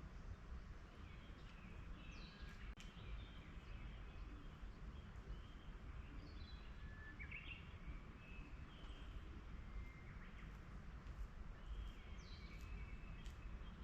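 Forest birds chirping and calling faintly, short scattered calls and brief pitch glides from several birds, over a steady low background rumble.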